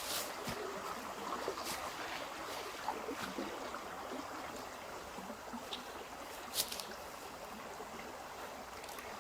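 Running water, with a few brief splashes.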